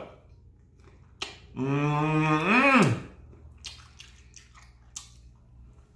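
A man eating fried chicken wings: wet mouth smacks and finger-licking clicks, and about a second and a half in a drawn-out 'mmm' of pleasure that drops in pitch at the end.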